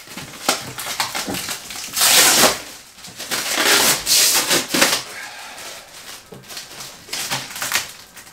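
Clear plastic wrapping being pulled and peeled off a resin 3D printer's orange acrylic lid, crinkling and crackling in quick irregular snaps, with longer tearing rustles about two and four seconds in.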